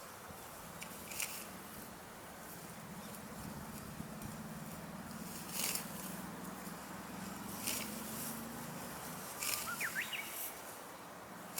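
Outdoor field ambience: a steady background hiss, broken by a few short high rustling strokes. A low hum runs through the middle, and a brief bird chirp comes near the end.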